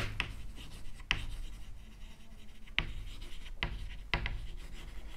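Chalk writing on a chalkboard: short scratchy strokes and taps of the chalk as a heading is written, with a faint steady low hum underneath.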